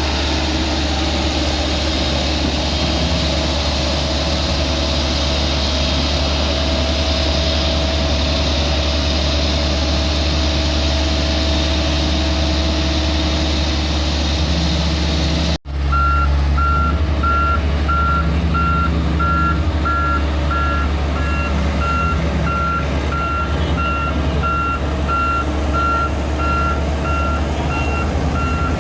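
Heavy road-construction machine's diesel engine running steadily. After an abrupt cut about halfway through, its reversing alarm beeps in a steady repeating pattern over the engine.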